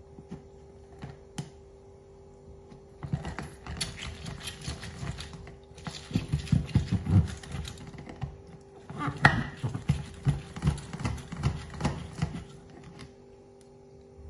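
A lemon half pressed and twisted back and forth on a plastic citrus reamer under an upturned drinking glass, making a rapid grinding, creaking scrape that starts about three seconds in and keeps going in long spells until near the end. A faint steady hum sits underneath.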